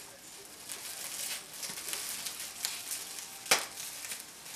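Plastic bubble wrap crinkling as it is pulled and squeezed, with scattered small pops and crackles and one loud, sharp bubble pop about three and a half seconds in.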